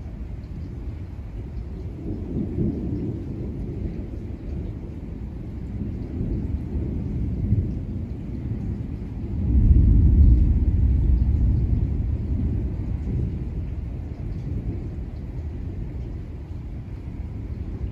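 Thunder rumbling low, swelling twice and then rising to a loud peak about halfway through before slowly dying away.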